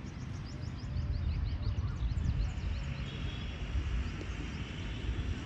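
Wind rumbling on the microphone, with a bird giving a rapid run of short rising chirps, about five a second, for the first couple of seconds.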